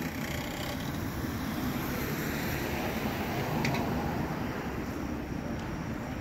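Steady low rumble of a vehicle running close by, swelling slightly around the middle, with one faint tick.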